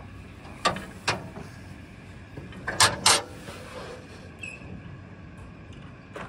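Metal clanks and knocks from the galvanised steel work basket of an OMME trailer lift as it is climbed into: two sharp knocks about a second in and two more close together near the three-second mark, over a steady low rumble.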